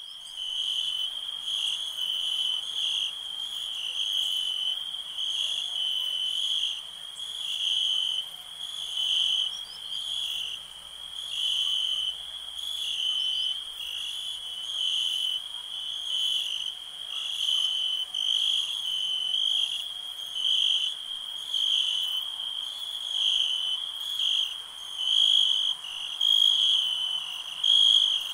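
Crickets chirping in a continuous high trill that swells and fades in regular pulses a little over a second apart.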